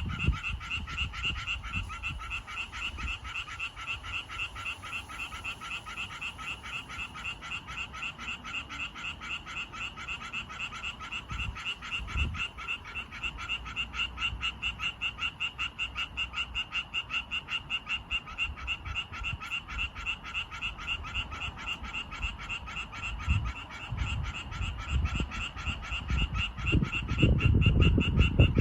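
Male Japanese tree frogs calling in a steady chorus, a fast run of rapid, evenly pulsed croaks at about five a second: advertisement calls to attract females. A low rumble comes in near the end.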